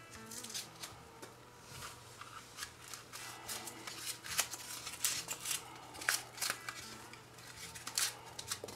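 Bubble wrap crinkling and rustling in the hands as it is pulled off a plastic model locomotive shell, in a run of irregular sharp crackles.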